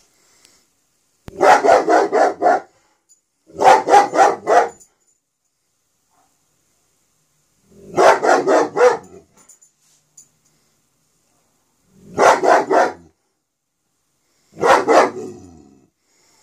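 German Shepherd barking in five bursts, each a quick run of several barks lasting about a second, with pauses of one to three seconds between them.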